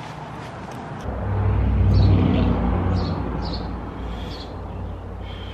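A motor vehicle passes by, its low rumble swelling about a second in, peaking, then slowly fading. Birds chirp at short intervals over it.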